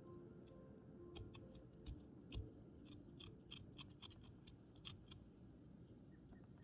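Faint, irregular sharp clicks and snips of a hand-carving blade cutting into wood, clustered in the middle few seconds.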